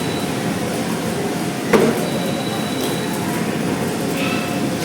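Steady background din of an indoor play centre, a dense hum of distant activity and voices, with one sharp knock about two seconds in.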